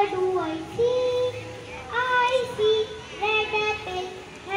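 Young children singing a song, with long held notes that step up and down in pitch.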